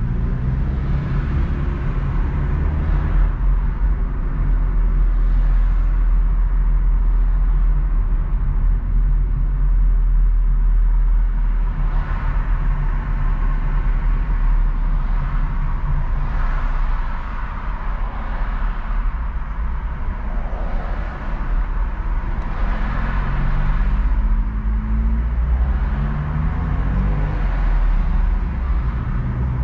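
A car driving on city streets: a steady low road and engine rumble with swelling tyre and traffic noise. Near the end the engine note climbs in several steps as the car accelerates.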